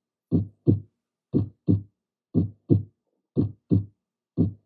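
Heartbeat sound: a steady double thump, lub-dub, repeating about once a second, four beats and the start of a fifth.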